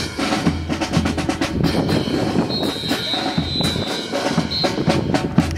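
Ceremonial rifle drill: drill rifles clacking and slapping and boots stamping in unison, a rapid string of sharp wooden clicks and knocks. A high steady tone sounds for about two seconds in the middle.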